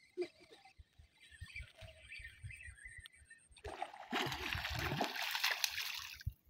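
A hooked fish thrashing and splashing at the water's surface close to the bank, a loud splashing that starts a little past halfway and lasts about two and a half seconds. Quieter irregular rustles and knocks come before it.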